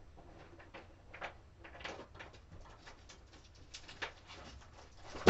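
Someone rummaging in a supply cabinet: a scatter of small clicks, rustles and light knocks, with one louder knock at the very end.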